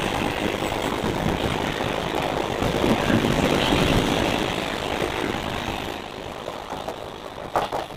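12-car electric multiple-unit local train accelerating out of a station, its coaches passing with a steady noise of wheels on rails. The noise fades as the last coach goes by about six seconds in, and a few sharp knocks come near the end.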